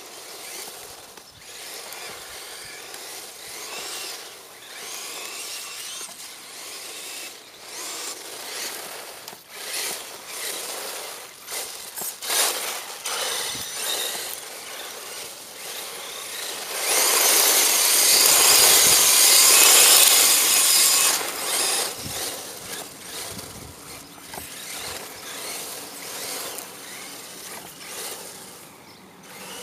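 Traxxas 1/16 Mini E-Revo electric RC truck driving on a dirt infield: the motor whine rises and falls with the throttle over tyres crunching and scrabbling on the dirt. The sound swells loudest for about four seconds just past the middle.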